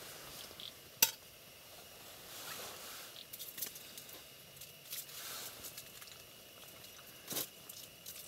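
Faint rustling and handling noises, with a sharp click about a second in and a fainter one about seven seconds in.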